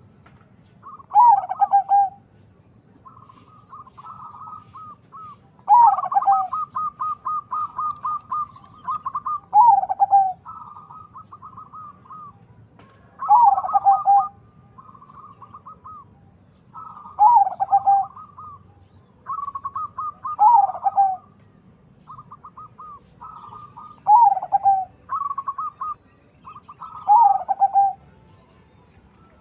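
Crossbred local-and-Bangkok perkutut (zebra dove) cooing in repeated phrases about every three to four seconds. Each phrase is a quick stutter of notes followed by a louder coo that drops in pitch, and shorter stuttering notes come between the phrases.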